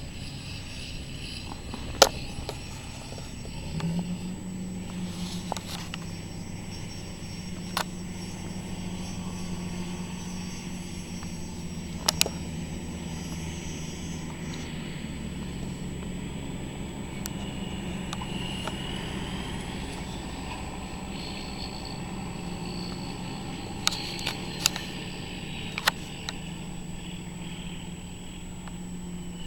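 Sugar beet harvest machinery with its engine running steadily, the hum settling in about four seconds in, with a few sharp knocks now and then.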